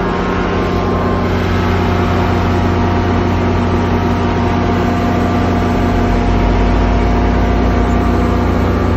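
NJ Transit GP40PH-2B diesel locomotive's head-end power set running steadily: a loud, even hum with several whining tones over a noisy drone. A deeper low rumble grows about six seconds in.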